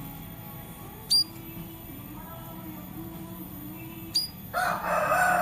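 A small bird gives two sharp chirps that sweep down in pitch, about three seconds apart, then near the end a rooster starts crowing loudly.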